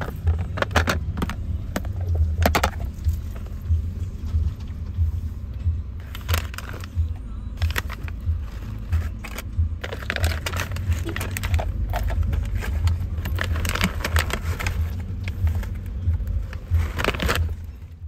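Low steady rumble of a moving car's cabin, with scattered clicks, taps and rattles of a plastic food container with a snap-on lid being handled.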